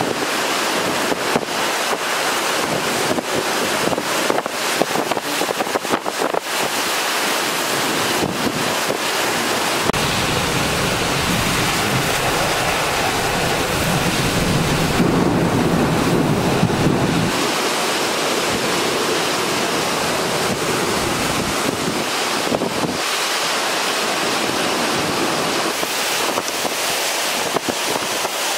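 Hurricane Ian's wind and driving rain rushing steadily. Gusts buffet the microphone, with a deep rumble for several seconds near the middle.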